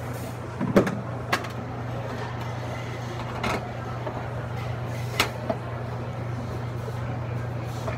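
Steady low hum of a True prep cooler's refrigeration unit running, compressor and condenser fan on, with a handful of sharp metal clicks and knocks as the last panel screws are fitted; the loudest comes about a second in.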